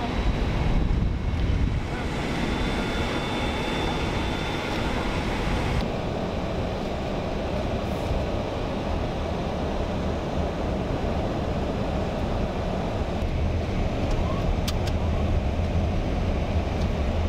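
Steady low rumble of road vehicles with wind noise on the microphone. The higher hiss drops away abruptly about six seconds in.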